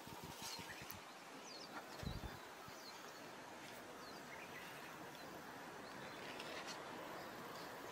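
Faint outdoor ambience with a few soft, short bird chirps and a single low thump about two seconds in.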